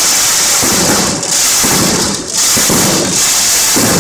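Loud, dense crackling and rushing from a burning falla and the fireworks going off on it. The noise is continuous, with short lulls about a second and two seconds in.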